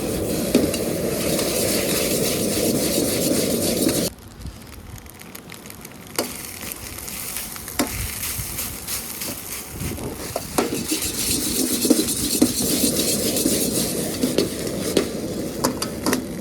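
Egg and rice stir-frying in a hot wok: loud sizzling, with a spatula scraping and tossing the rice. About four seconds in the sizzling drops away suddenly, leaving sharp clicks and scrapes, and the frying builds up again later.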